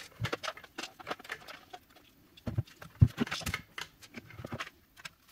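Plastic housing of a 56V lithium-ion battery pack being pried apart and lifted off by hand: irregular clicks, light knocks and scrapes of hard plastic, with one sharper knock about three seconds in.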